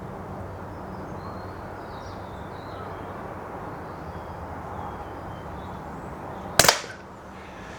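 A single sharp shot from a Snowpeak PP20 .177 pre-charged pneumatic air pistol about six and a half seconds in, over a steady low background hum.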